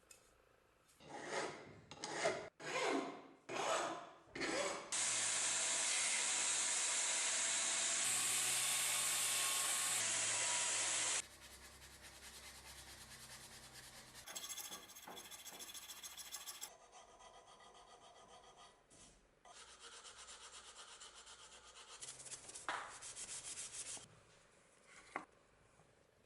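Rubbing and rasping strokes of hand filing or sanding on wood, about five strokes. A loud steady hiss follows for about six seconds and cuts off abruptly, then quieter scraping and rubbing.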